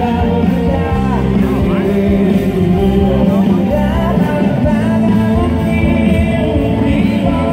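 Live band performing, with a male lead singer singing into a microphone over keyboard and band accompaniment; the music is steady and loud.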